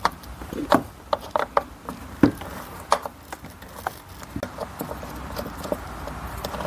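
Irregular small clicks and taps of a screwdriver working a Phillips screw in the plastic seat trim, with a few louder knocks.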